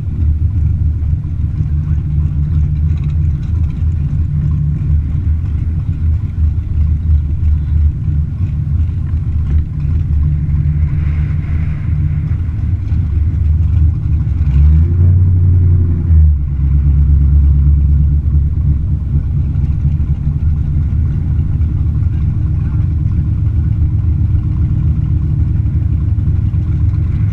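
Car engine running steadily with a deep low note, with one brief rise and fall in revs about fifteen seconds in.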